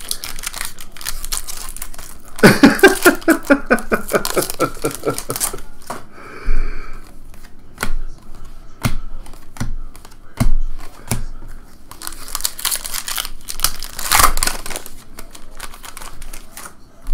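Foil wrapper of a baseball card pack crinkling and tearing as it is opened by hand, with sharp clicks as the cards are flicked through one by one. A voice is heard for a few seconds early on, the loudest part.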